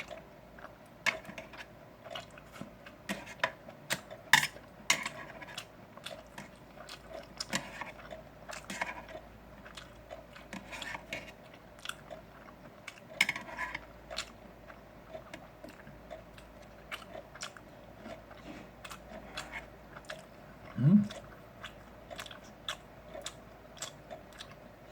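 Close-up chewing and biting of grilled pork, with many irregular wet clicks and smacks of the mouth.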